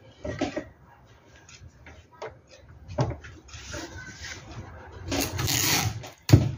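Hands placing and smoothing a piece of fabric on the stabilizer in an embroidery machine's hoop: soft rustling and light taps. There is a louder rustle about five seconds in and a sharp knock near the end.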